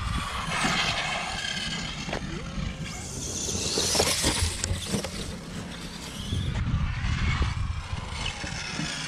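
Radio-controlled cars driving: the electric motors whine, the pitch rising and falling with the throttle, over tyre and drivetrain rumble. There is a louder rushing stretch around four seconds in, as the monster truck runs over grass.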